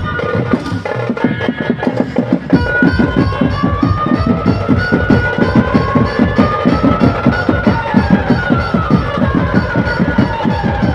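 Dhumal band music: a fast, steady drum beat under a melody line from the banjo. The low drums drop out briefly near the start and come back in full about two and a half seconds in.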